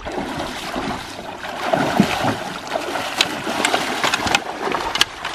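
Water splashing and churning as a silver (coho) salmon thrashes in a landing net and a wader steps through shallow river water. It grows louder a little under two seconds in, with many sharp splashes through the second half.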